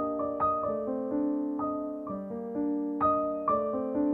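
Background piano music: slow, gentle notes and chords.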